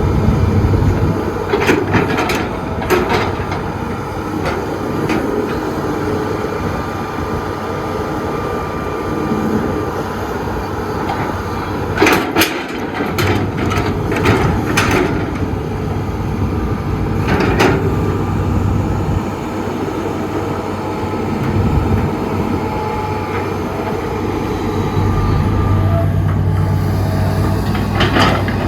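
Diesel engine of an excavator running steadily with a low hum, with sharp metallic clanks and knocks now and then, several of them in a quick cluster about halfway through.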